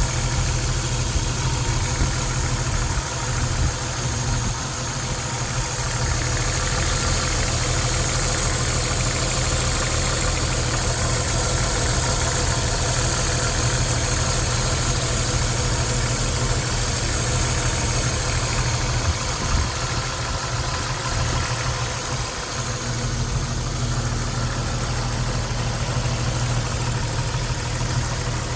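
1994 Jeep Wrangler YJ engine idling, the Jeep being one that stalls and won't restart. It keeps running throughout, with brief slight dips in level a few seconds in and again a little past the twenty-second mark.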